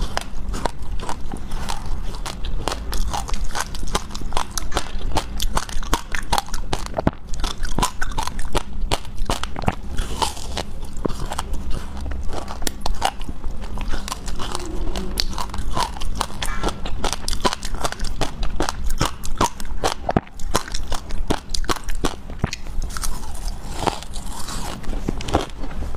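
Close-miked biting and chewing of a chunk of hard ice, with dense, rapid crunching and crackling.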